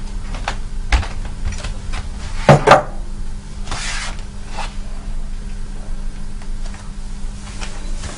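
A person moving about and handling things while watering plants: scattered light knocks and rustles, two louder knocks close together about two and a half seconds in, and a short hiss about four seconds in, over a steady low hum.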